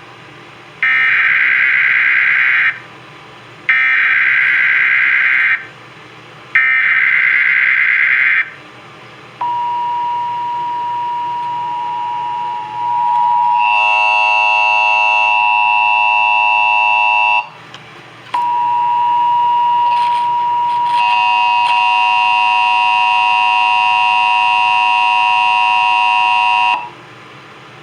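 Emergency Alert System tones. Three short bursts of SAME digital header data come first. Then the steady two-tone EAS attention signal plays, with extra higher tones joining in partway. It breaks off briefly about halfway, resumes, and cuts off near the end.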